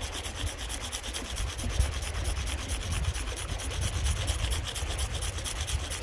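A piece of shale scraped rapidly back and forth across a sandstone rock: a steady, rhythmic rasp of stone on stone as it streaks off its dark gray, almost black pigment.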